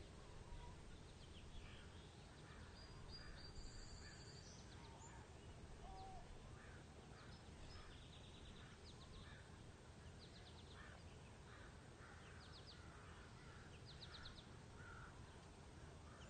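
Very faint outdoor ambience of distant birds calling: repeated short calls and quick high trills over a low steady rumble.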